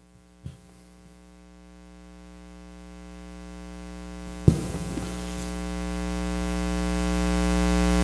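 Electrical mains hum from the sound system, a steady buzz that grows steadily louder, with a single thump about four and a half seconds in followed by added hiss.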